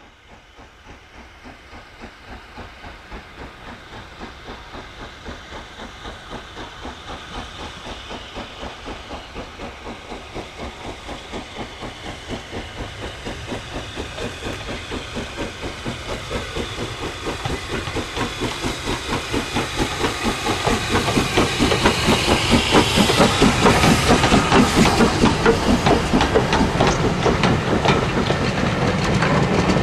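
Southern Railway S15 class two-cylinder 4-6-0 steam locomotive, newly overhauled and being run in, working away from a standing start with a regular rhythm of exhaust beats and steam hiss. It grows steadily louder as it approaches and passes, and near the end the coaches roll by.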